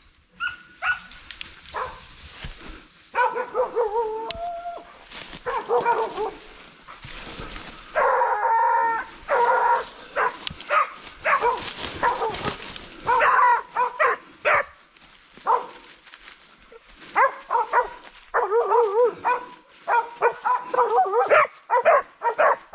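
Hunting dogs baying on the trail of a wild boar: repeated drawn-out yelps and howls, coming thicker and faster in the last few seconds.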